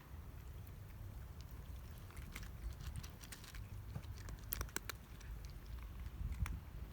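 Scattered light clicks and crackles, thickest about four and a half seconds in, over a steady low rumble.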